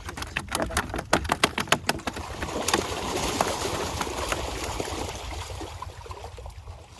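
Rapid slapping clicks, like live fish flapping, for about two seconds, then a rush of splashing water that fades over the next few seconds.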